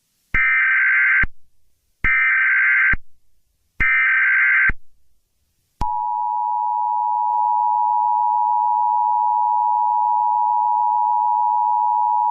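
Emergency Alert System tones: three one-second bursts of SAME header data, about a second and a half apart, then the steady two-tone EAS attention signal starting about six seconds in. This is the sequence that opens an emergency alert broadcast.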